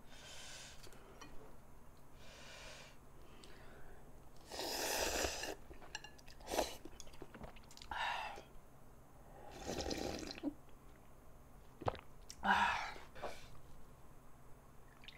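A person eating instant ramen: a series of slurps of noodles and broth, one of them drinking straight from the bowl, with chewing between them. Two sharp clicks of the bowl or chopsticks are heard, about a third of the way in and near the end.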